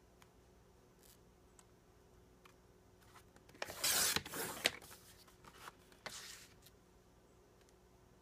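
The cutting head of a sliding paper trimmer drawn along its rail, slicing through cardstock in one scraping stroke lasting about a second, about four seconds in. A shorter scrape follows about two seconds later, with a few faint paper ticks around it.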